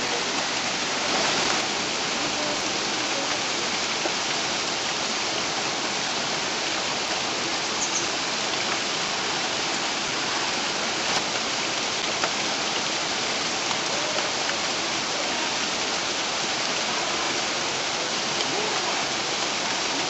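Waterfall: a steady rush of water falling in thin streams down a rock face and splashing onto the boulders below.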